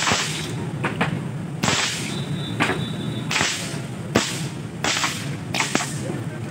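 Long whips cracking one after another, each a sharp report, about one a second with the odd pair close together.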